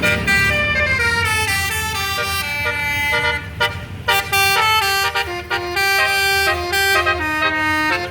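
Bus basuri ('telolet') musical horn playing a tune of changing notes, with a short break about three and a half seconds in.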